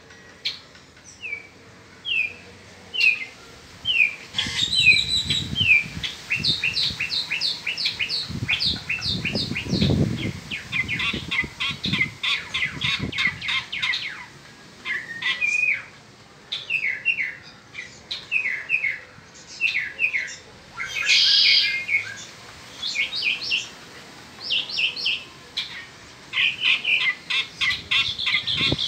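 Mockingbird (cenzontle peninsular) singing its spring song: a long run of varied phrases of quick, high notes, each phrase repeated several times before it switches to the next. A low rumble sits under the song about a third of the way in.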